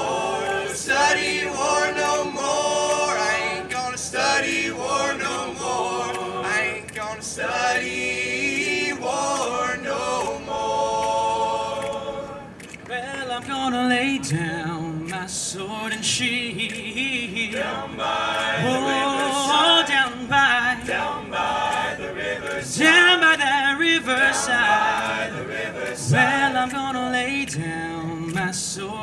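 All-male a cappella group singing in close harmony, voices only. After a brief dip about halfway through, a lead singer with a wavering vibrato carries the melody over the others' backing parts.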